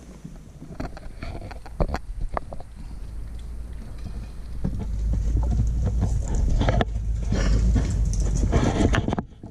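Footsteps crunching on dry dirt and gravel, with wind rumbling on the microphone. The rumble grows louder through the middle and cuts off suddenly near the end.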